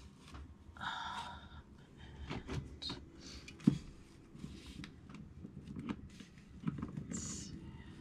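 Paper scraps rustling and being shuffled as they are handled, with scattered light clicks and one sharp click a little under four seconds in.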